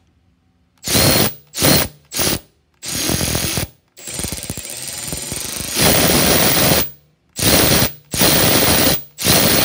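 Milwaukee power ratchet spinning a large 3/8-inch drive socket freely, with no load, in a series of short trigger bursts and one longer run of about three seconds in the middle.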